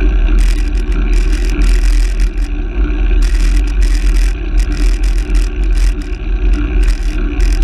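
Handcycle rolling along the road: a steady, loud low rumble of tyre and wind noise on a low-mounted camera, with irregular short hissy rattles over it.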